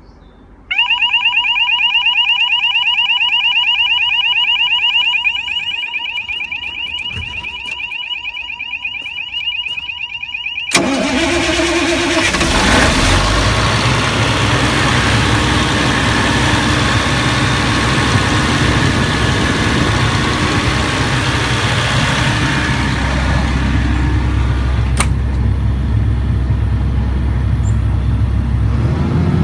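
A loud, steady electronic warning tone sounds for about ten seconds from the compressor's control panel, then the Atlas Copco XAHS426 Cd's Caterpillar diesel engine starts abruptly and runs steadily. A single click is heard about 25 seconds in.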